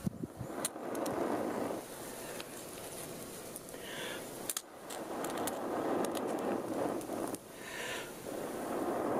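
A person blowing long, steady breaths into a cedar-bark tinder bundle to coax an ember into flame, about three long blows with breaths drawn in between, and light crackling from the smouldering bark.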